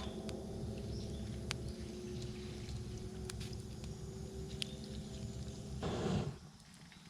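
Campfire crackling with a few sharp, isolated pops over a steady low hum. About six seconds in, a short rush of noise, after which the hum drops away.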